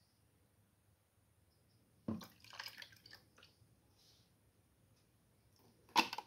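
Water splashing and dripping in plastic cups as the cups holding betta fish are handled, in a cluster of short sounds about two seconds in. Near the end comes a sharp knock of a plastic cup being grabbed.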